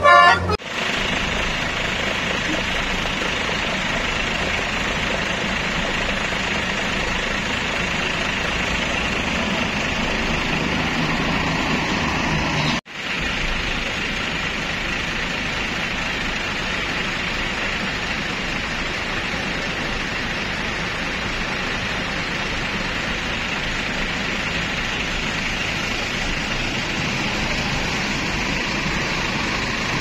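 The last notes of a bus's multi-tone telolet horn tune end within the first half-second. Then steady noise of a coach running and manoeuvring, with a faint engine hum, breaks off abruptly about 13 seconds in and carries on unchanged.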